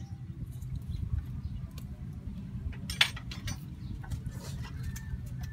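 Wood fire burning in a clay stove: a steady low rumble with scattered short clicks and crackles, the sharpest about three seconds in.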